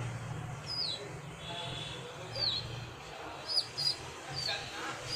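Pigeon squabs cheeping: short, high chirps that fall in pitch, about once a second, with two in quick succession a little past the middle, over a low steady hum.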